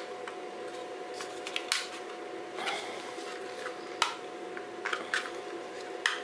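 Scattered plastic clicks and light scrapes as the snap-fit canopy of a DJI FPV drone is prised off by hand, its clip tabs popping loose. A faint steady hum sits underneath.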